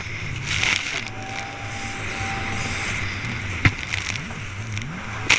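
Jet ski engine eased off through a tight buoy turn, then revving back up with a rising pitch in the second half, over the hiss of spray and water. A sharp knock comes about two-thirds through, and a brief loud burst of water noise comes near the end.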